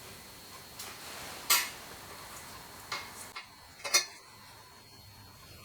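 Small metal clicks and clinks of a bolt and washers being handled and fitted to a fuel pump's rubber mount: about five sharp clicks, the loudest about one and a half seconds in.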